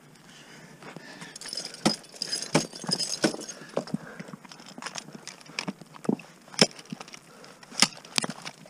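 Ice axe picks swung and struck into snowy water ice, a run of irregular sharp hits with crunching of ice and snow; the crunching is densest during the first few seconds, and the loudest strikes come later.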